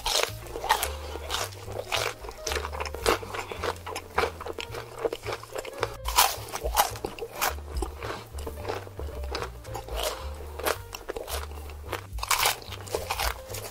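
Crunchy biting and chewing sound effects meant for crispy fried chicken, many sharp crunches in quick succession, with heavier bites about six seconds in and again near the end. Background music with a low bass line runs underneath.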